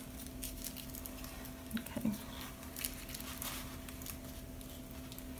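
Faint, scattered crinkling and rustling of tissue paper being twisted and pressed by hand onto a crumpled aluminium-foil board, over a low steady hum.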